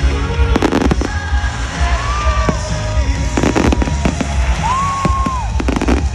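Fireworks bursting and crackling in three quick clusters, over background music with a heavy bass.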